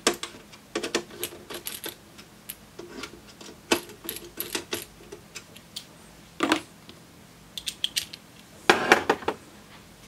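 Hand screwdriver turning the rear-panel screws into a metal instrument case: irregular light metallic clicks and ticks, with a louder clatter of tools near the end.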